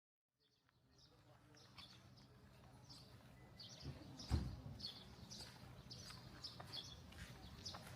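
Small birds chirping repeatedly in short high calls over a low steady hum, fading in at the start, with one low thump about four seconds in.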